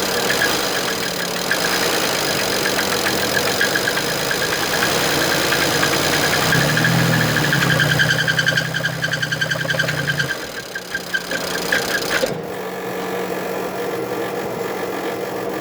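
BMW N54 twin-turbo inline-six running with a knocking noise from a bad bearing, with copper throughout the oil a sign of worn bearings. The engine note strengthens for a few seconds midway, and about twelve seconds in the higher hiss cuts off suddenly while the engine runs on a little quieter.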